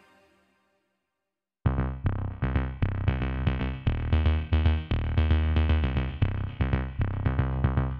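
Background music: the previous track fades out into about a second of silence, then an electronic track with a steady drum-machine beat and synthesizer chords starts suddenly about one and a half seconds in.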